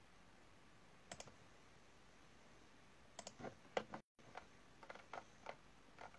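Faint, irregular light clicks and taps over quiet room tone, like typing: one pair about a second in, then a cluster from about three seconds in. The sound cuts out completely for a moment about four seconds in.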